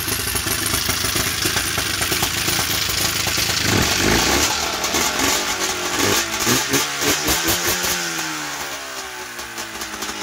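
Polaris 700-based two-cylinder two-stroke snowmobile engine running rich. It runs steadily, is revved in several quick surges from about four seconds in, and falls back in pitch near the end.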